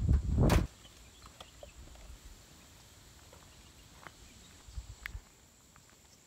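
Wind rumbling on the microphone, with one sharp knock about half a second in; the rumble stops suddenly and a quiet outdoor background follows, with a few faint scattered ticks.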